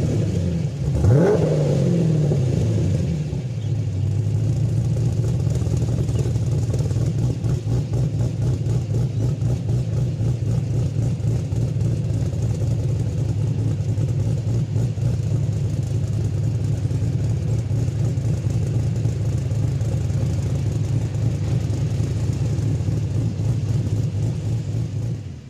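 Holden VF Commodore's LS3 V8 running through an aftermarket cat-back exhaust. It is given a quick throttle blip about a second in and the revs drop back, then it settles into a steady, low idle.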